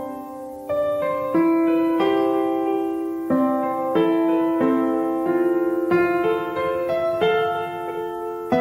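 Background piano music: slow chords and single notes struck one after another, each ringing on as it fades.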